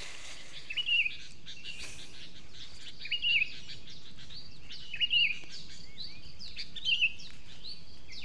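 A bird repeating a short chirping phrase about every two seconds, four times, over fainter chirps of other birds.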